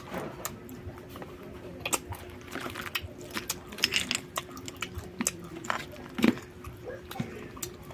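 Close-up chewing and crunching of raw shellfish, with irregular crisp cracks of shell. A faint steady hum runs underneath.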